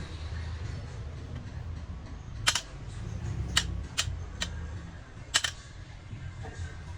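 Five sharp clicks or knocks, the loudest about two and a half seconds in and near five and a half seconds, over a low steady hum.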